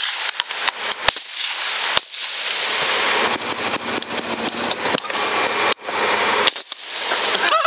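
Hunting rifles firing at feral hogs in a coordinated volley on a countdown: a rapid cluster of about five shots in the first two seconds, then two more single shots a few seconds later, over a steady hiss.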